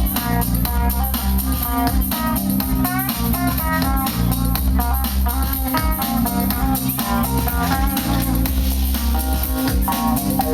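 A band playing an instrumental passage without vocals: quick picked guitar notes over a steady bass line and drums.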